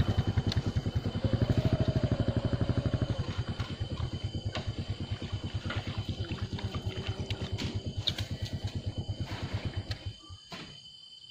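A small engine running with rapid, even firing pulses, fading steadily and cutting out about ten seconds in.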